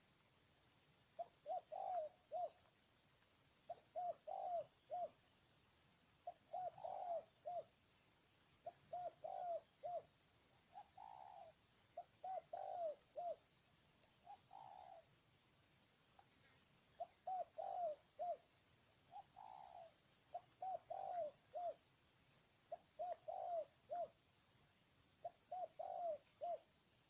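Spotted dove cooing: short phrases of three or four low coos, repeated about every two to two and a half seconds, with a few single drawn-out coos in between.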